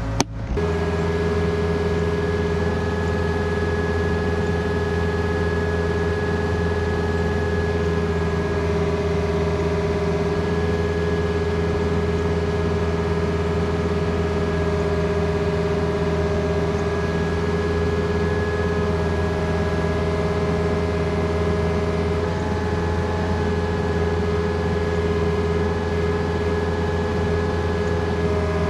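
Excavator's diesel engine running steadily, a constant hum with a steady whine over it.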